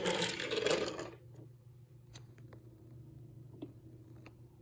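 Die-cast Mater toy tow truck pushed by hand across a wooden desk, its small wheels rolling noisily for about a second, followed by a few faint ticks and clicks over a low steady hum.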